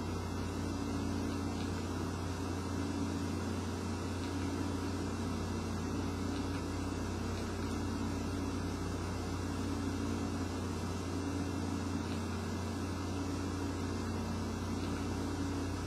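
Steady low hum with a faint hiss: background room noise, with no change in level and no sudden sounds.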